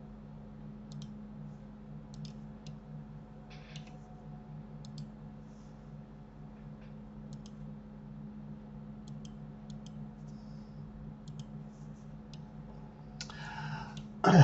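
Computer mouse clicks, scattered and often in quick pairs, over a steady low hum. A short breathy noise comes near the end.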